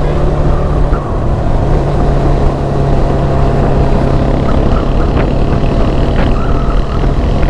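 Bajaj Dominar 400's single-cylinder engine running at a steady pitch while cruising, over a loud rush of wind.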